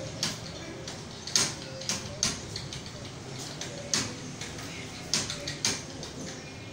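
Computer keyboard being typed on: irregular key clicks, a few strikes noticeably louder than the rest.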